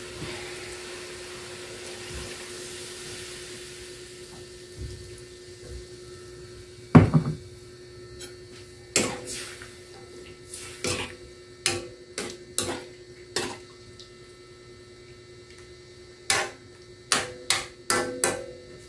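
Metal ladle knocking and scraping against an aluminium wok while chicken and vegetables simmering in added water are stirred: a string of sharp clinks starting about seven seconds in, with a short pause near the middle. Before that, a soft hiss from the pan fades out over the first few seconds.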